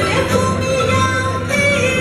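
Live Spanish folk music from a string ensemble of guitars and lutes playing a dance tune, with a voice singing the melody.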